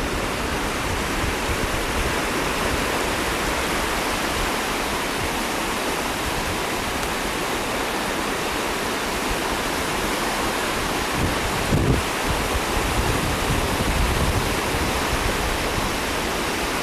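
Steady rush of ocean surf, with gusty wind buffeting the microphone underneath.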